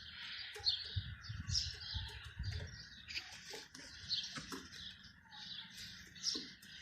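Birds chirping in many short, high, repeated calls, with a few light taps and a brief low rumble about one to three seconds in.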